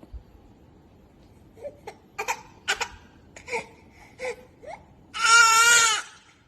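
A baby whimpering in short, separate sobs, then letting out one loud, high-pitched cry near the end.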